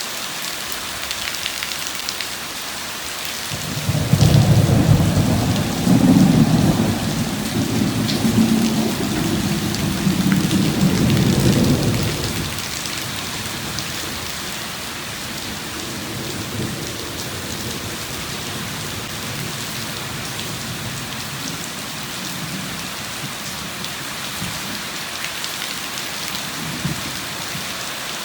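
Steady heavy rain with a long roll of thunder: a deep rumble swells in about four seconds in, peaks twice and dies away after about eight seconds, leaving the rain hiss and a few faint distant rumbles.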